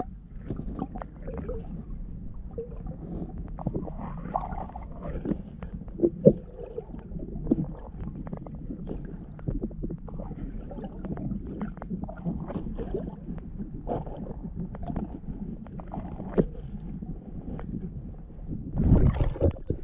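Muffled underwater sound of a swimmer moving through lake water, picked up by a submerged action camera: a steady low rumble with many small clicks and knocks, and a louder rush of water near the end.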